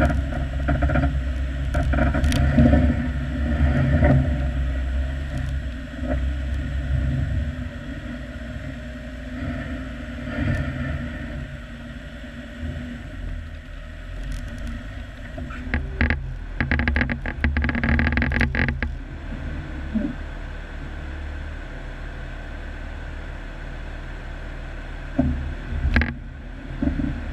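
A Jeep's engine running as it drives a snowy, rutted off-road trail, a steady low rumble that is louder in the first several seconds. A burst of rapid rattling and knocking comes about sixteen to nineteen seconds in, with a single knock near the end.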